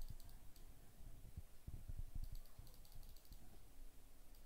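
Faint clicking of a computer mouse, a short cluster near the start and another about two seconds in, over soft low bumps.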